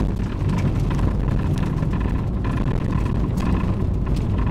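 Toyota Celica All-Trac driving over a rough road, heard from inside the cabin: steady low road and engine rumble with scattered irregular knocks. The knocks are the clunking the owners have not traced, which a new front axle did not cure.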